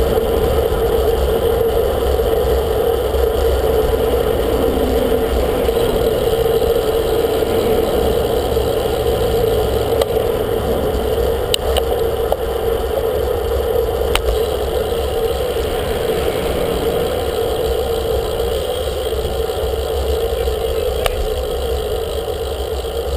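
Steady wind rush and road rumble on a bicycle-mounted camera riding at speed, with a constant droning hum and a few faint clicks.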